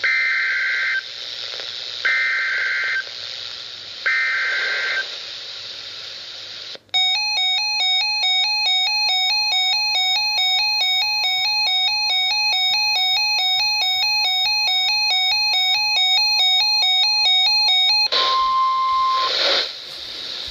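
NOAA Weather Radio Emergency Alert System broadcast: three one-second bursts of warbling SAME header data tones over radio hiss, then electronic alert tones stepping up and down in a repeating pattern for about eleven seconds. A steady 1050 Hz warning tone runs under them and sounds alone for about a second near the end, signalling a watch or warning about to be read.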